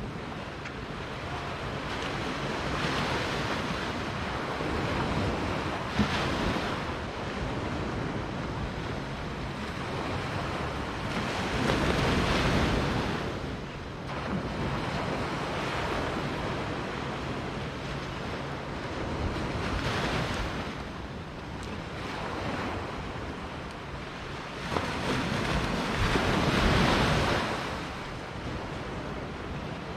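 Small waves breaking and washing up a sandy beach on a calm sea, the surf swelling and fading every few seconds, with the loudest surges about a third of the way in and near the end.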